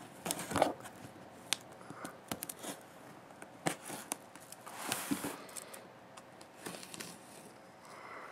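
Cardboard shipping box being handled and turned over: brief rustles, scrapes and light taps at irregular moments, the loudest just under a second in.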